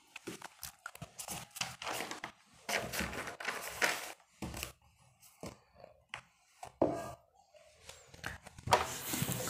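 Writing by hand: a run of short, irregular scratching strokes and light taps, with a louder scrape near the end.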